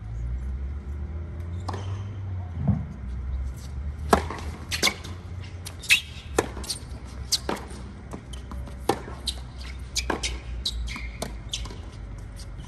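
A tennis rally on a hard court: sharp knocks of racket strikes on the ball and the ball bouncing on the court, a dozen or more, starting about four seconds in and running on at an uneven pace, over a low steady rumble.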